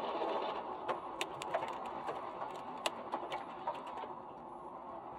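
Steady road and engine noise heard inside a moving car through a dashcam microphone, with irregular sharp clicks and ticks on top, the loudest about three seconds in.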